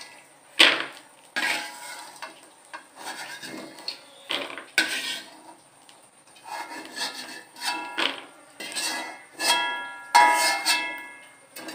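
Metal spatula scraping fried peanuts out of a wok and the peanuts rattling into a plastic bowl, in a string of separate scrapes and rattles. The later scrapes make the wok ring.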